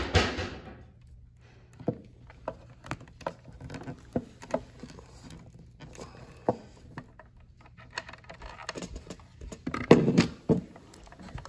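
A hand crimping tool pressing blue butt-splice connectors onto lamp-cord wires: scattered small clicks and knocks from the tool and the wires being handled, with louder handling noise at the start and again about ten seconds in.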